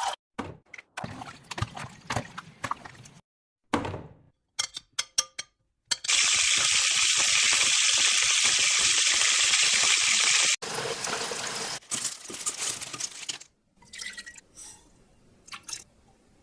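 Kitchen cooking sounds cut together in quick succession: liquid pouring and dripping, with a loud, steady hiss of running water or sizzling for about four and a half seconds in the middle, ending suddenly.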